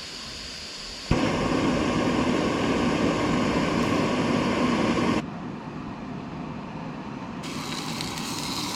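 Gas flame lit with a lighter: a sharp click about a second in, then a loud, steady rushing hiss of burning gas for about four seconds, which drops to a quieter hiss.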